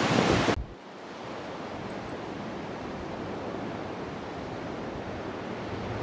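Strong wind buffeting the microphone in loud low gusts, cut off abruptly about half a second in, followed by a quieter, steady rush of wind.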